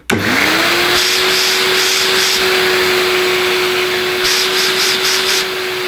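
Miele S126 bagged stick vacuum cleaner's 800-watt motor switched on: it spins up within a fraction of a second to a steady whine with a strong rush of air. The airflow hiss wavers twice as a hand moves near the nozzle. The owner judges the motor to sound very good, with nothing wrong with it.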